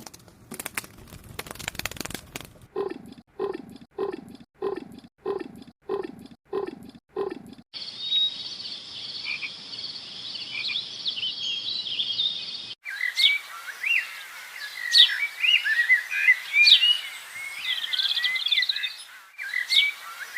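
A run of animal call recordings. First a crackling noise, then eight croaking calls at about two a second, each falling in pitch. After that comes a steady high chirring chorus, and from about two-thirds of the way in, birds chirping and calling.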